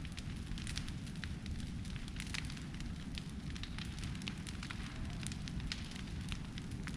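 Brush fire burning: a steady low rush of flame with many sharp, irregular crackles and pops.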